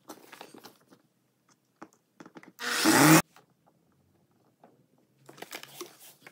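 Power drill briefly driving a screw through a metal bracket into a cardboard panel: a short motor whirr that swells for about half a second and stops sharply about three seconds in, with clicks and rubbing of the tool and bracket before and after.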